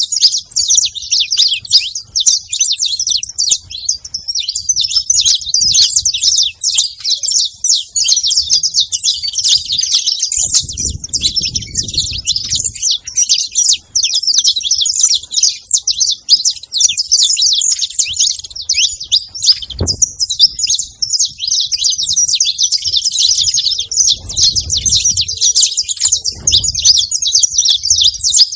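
A flock of saffron finches chirping and calling together, many short calls overlapping in a continuous chatter.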